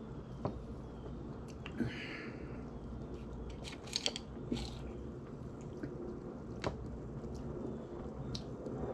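Mouth sounds of a man sipping soda through a plastic straw from a can: scattered small wet clicks and a short slurp about two seconds in.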